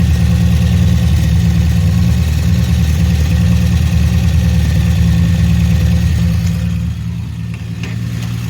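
1966 Dodge Dart GT's 225 slant-six engine idling steadily through a newly fitted cheap muffler, with no tailpipe on yet. The sound gets somewhat softer about seven seconds in.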